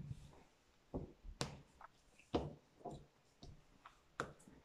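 A handful of irregular soft taps and knocks from hands pressing and patting modelling clay flat against a tabletop, the loudest about a second and a half in.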